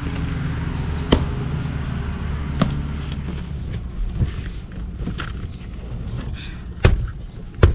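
A few sharp clicks and knocks, about six spread out, the loudest two near the end, over a steady low hum.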